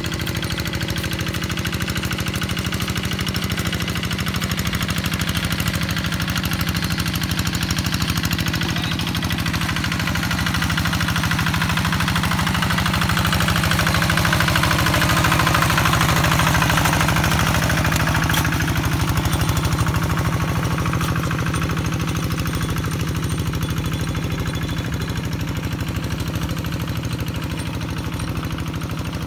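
Kubota single-cylinder diesel engine of a two-wheel hand tractor running steadily under load as it ploughs a flooded rice paddy. It grows louder for a few seconds around the middle, then eases back.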